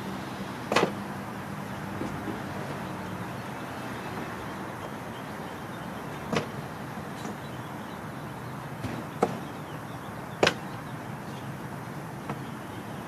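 A few sharp, isolated knocks and clicks, four of them spread out with a few seconds between, from a storm door and its hardware being handled and fitted, over a steady background hiss.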